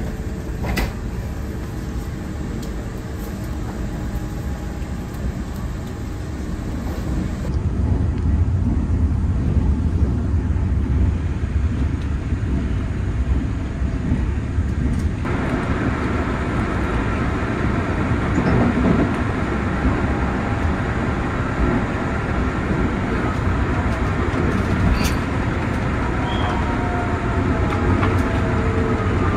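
Cabin ride noise of a Taiwan Railway EMU3000 electric multiple unit under way, a steady low rumble of wheels and running gear. Near the end the traction motors' whine sweeps up and down, which the rider takes for the wheel-slip protection acting on a rail only wet with drizzle.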